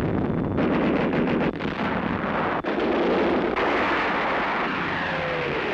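Tank guns firing and shells exploding in a continuous battle din, with a run of rapid cracks about a second in and a falling whistle near the end.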